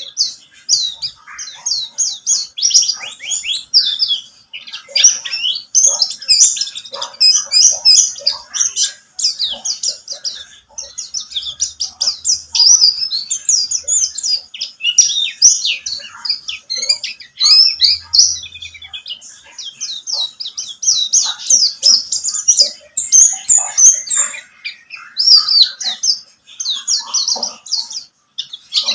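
Pleci buxtoni white-eye singing a long, fast, chattering warble of quick high twittering notes, almost without a break, the kind of song used as a lure recording to get caged white-eyes to sing.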